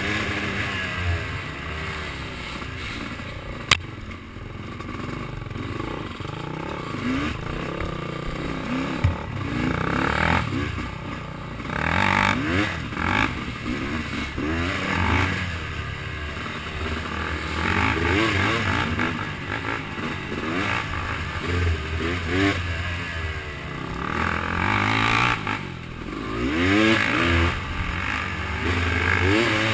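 Dirt bike engine being ridden along a trail, its pitch rising and falling again and again as the throttle is worked, with clattering and a couple of sharp knocks.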